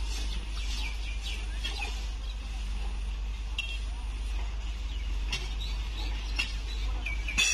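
Birds chirping in quick falling calls over a steady low rumble, with distant voices and a few sharp clinks of track workers' tools on the ballast and rails.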